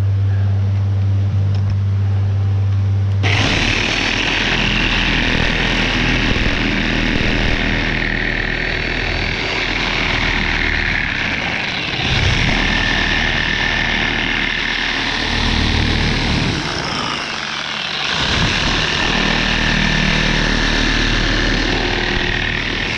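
A steady mechanical drone, like a vehicle or engine running. About three seconds in, a low hum gives way abruptly to a louder, rushing noise that then holds steady.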